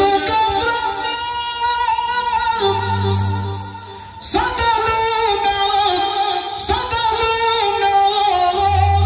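A man singing manele into a microphone through a sound system, in long, high, wavering held notes. There is a short break about four seconds in before the next phrase, and a low bass note sounds under the voice twice.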